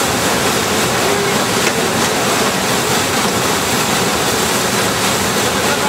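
Steady rush of a waterfall pouring into a churning whitewater pool.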